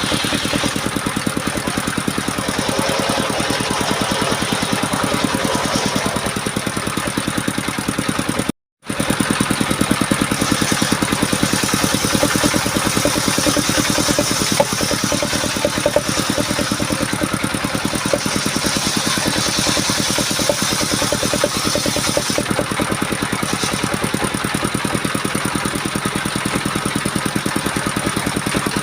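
Small engine of a homemade portable circular saw bench running steadily with an even firing rhythm, cut by a brief gap about a third of the way through.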